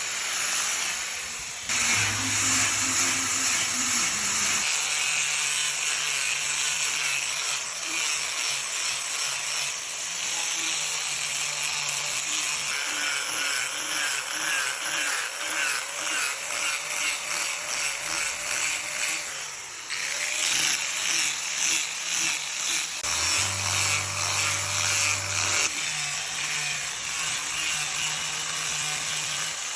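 A power tool carving wood: a loud, continuous hiss with rapid rhythmic pulsing, and a low hum that rises briefly twice.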